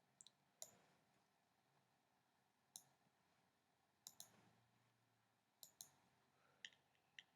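Faint computer mouse clicks over near silence: scattered single clicks and a few quick double clicks.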